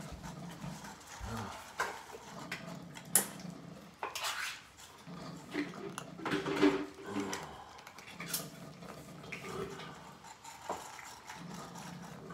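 A group of cats eating cat food from bowls on a tile floor: irregular wet chewing and smacking, with bowls clicking and knocking now and then, one sharp click about three seconds in.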